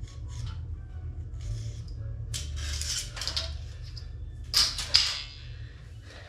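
Hard objects clattering and scraping in two short bursts, the second with a couple of sharp knocks, over a steady low hum.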